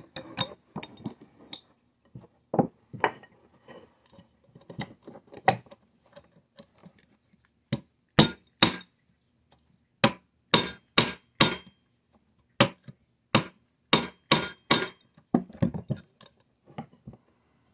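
A steel pin punch tapped repeatedly to drive a tight retaining pin out of an HW30s air rifle. Light metallic clicks and scrapes come first, then about a dozen sharp metallic taps from about eight seconds in.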